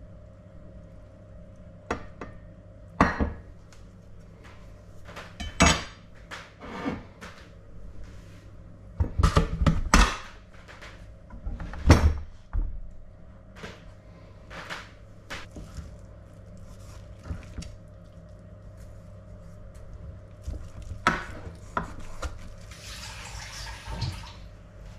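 Scattered knocks and clatters of a metal roasting tray and knife against a wooden table while roast pork is handled and sliced, the loudest cluster about nine to twelve seconds in. A short hiss near the end.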